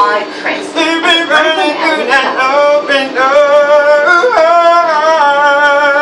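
A man singing unaccompanied in a strong voice, holding long notes and sliding between pitches.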